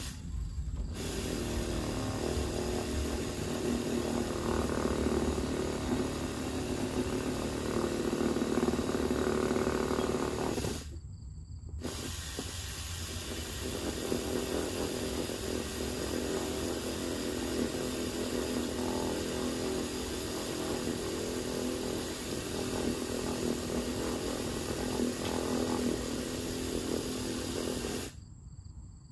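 A power tool runs steadily, cutting off abruptly about eleven seconds in for a moment and again near the end.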